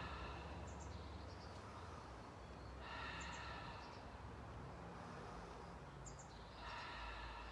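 A woman's slow, steady breaths, one about every three and a half seconds, while settling into a resting kneel, with faint bird chirps in between.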